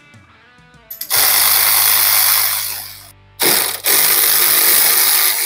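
Cordless electric ratchet spinning out the 10 mm bolts of a door window scrubber. It runs in two bursts of about two seconds each, starting about a second in, with a short pause between them.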